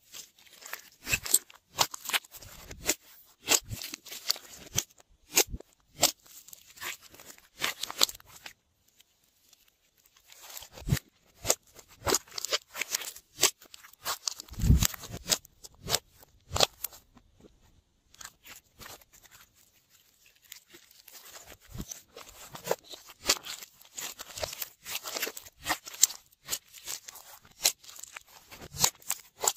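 Glossy slime being squished, folded and stretched by hand, giving a string of irregular wet clicks and pops. It falls quiet twice for a second or two.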